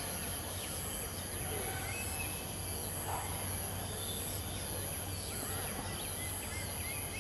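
Outdoor ambience: a steady, high-pitched insect drone that swells and fades about once a second, with scattered faint bird chirps.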